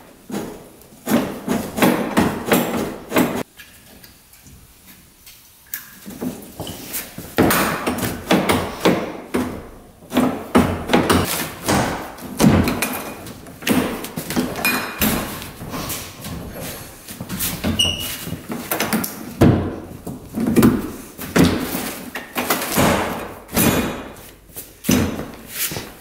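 Repeated metal clanks and knocks of a Polaris Ranger 500's dump-bed tailgate being forced open and shut, its sticking latch pins freshly sprayed with WD-40. There is a quieter pause a few seconds in.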